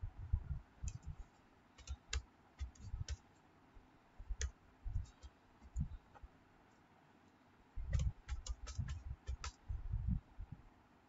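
Computer keyboard being typed on in short bursts with pauses between them, each keystroke a click over a low thud; the longest run of typing comes near the end.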